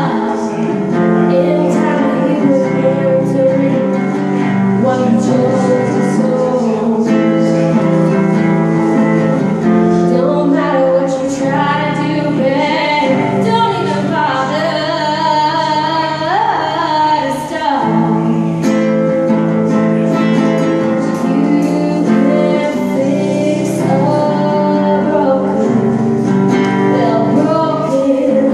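A woman singing while playing an acoustic guitar, with sustained chords under a sliding vocal line.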